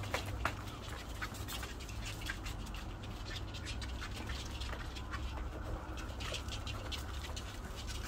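Puppies about six weeks old and their mother moving and playing on a hard floor. Many short clicks and taps come from claws and toys, with brief puppy noises among them, over a steady low hum.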